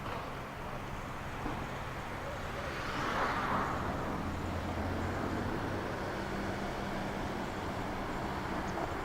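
Steady vehicle noise with a low hum, swelling briefly about three seconds in; the low hum grows stronger from about four seconds in.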